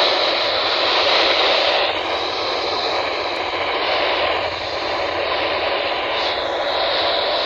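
Steady rushing static from a NOAA Weather Radio receiver as the signal fades, drowning out the broadcast warning.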